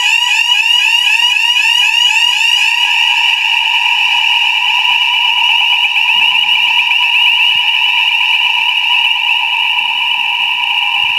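Electronic fire alarm sounder going off loudly: a rapid rising whoop repeating about four times a second, which blurs into a near-steady warbling tone about three seconds in.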